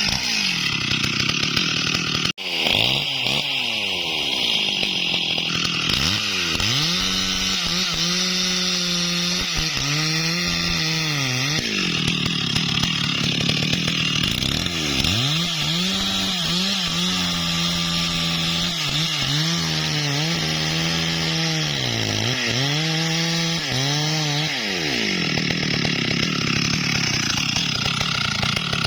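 STIHL MS 382 two-stroke chainsaw (about 72 cc) at full throttle cutting into wood: the engine pitch sags again and again as the chain bites under load, then picks back up.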